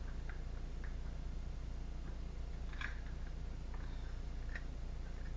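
Tarot cards being handled: a few faint, soft clicks spread through the pause, over a steady low hum.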